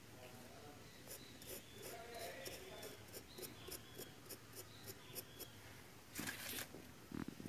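Small knife scraping and pressing wet sand-cement paste in short quick strokes, about four a second, then a louder brief noise about six seconds in.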